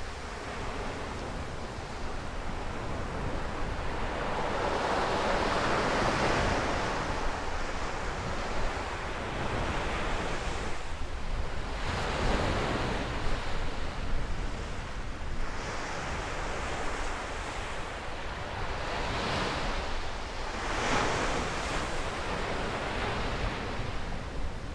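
Small sea waves breaking on a sandy beach, the surf swelling and fading every few seconds, with wind rumbling on the microphone.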